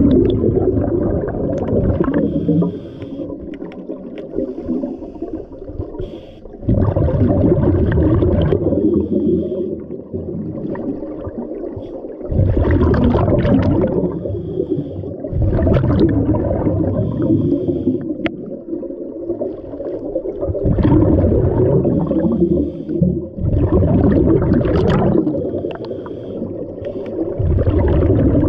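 Scuba diver breathing through a regulator underwater. Loud bubbling exhalations come every four to five seconds and last two to three seconds each, with quieter inhales between.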